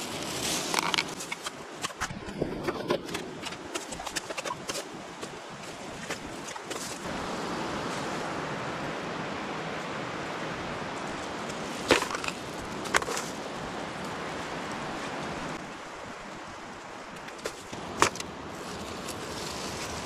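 A plastic carrier bag rustling and crushed drink cans clinking as litter is gathered up, then footsteps scraping on gritty asphalt with a steady rushing noise behind. A few sharp clacks come about two-thirds of the way through and again near the end.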